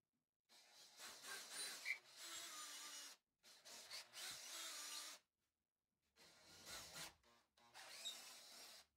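Cordless drill with a twist bit boring through plywood, run in four bursts of one to three seconds each, the bit cutting into the wood.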